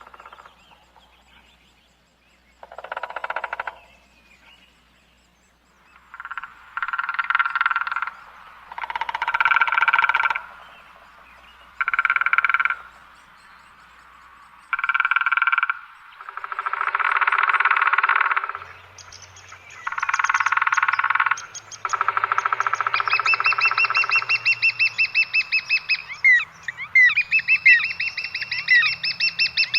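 A frog croaking: about eight rattling calls of a second or two each, a few seconds apart. In the last third a bird's fast, high, repeated notes come in and carry on to the end.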